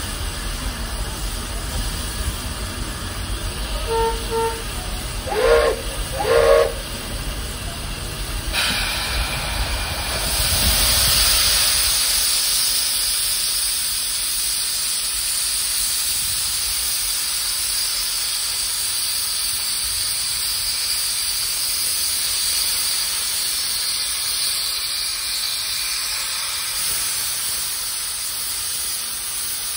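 The Roy O. Disney's steam whistle gives a couple of faint short toots and then two louder short blasts, the two-blast signal that the train is about to move forward. About three seconds later the cylinder drain cocks open and blow steam in a loud, steady hiss that swells and then holds as the 4-4-0 steam locomotive starts off.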